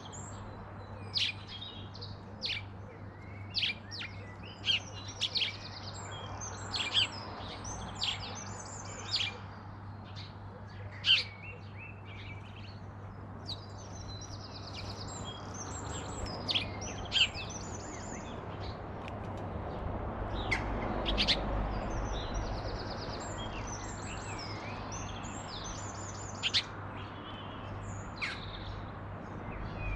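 Garden birds chirping and calling: many short, sharp notes follow one another irregularly. A low rumble swells and fades about halfway through.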